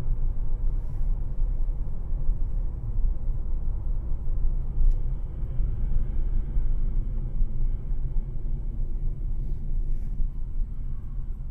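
Steady low rumble of a car driving, heard from inside the cabin: engine and road noise picked up by a dashcam.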